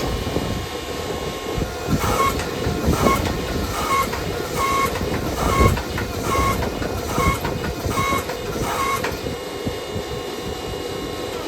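Hand hammer tapping a hot steel knife blade on an anvil: about a dozen light, even strikes at roughly two a second, each with a short metallic ring, starting about two seconds in and stopping near the end. The blade is being drawn down to target thickness. A steady rushing noise runs underneath.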